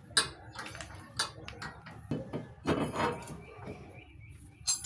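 Metal tools and parts clinking and knocking as they are handled, with a few sharp clinks and some scraping and rattling in between.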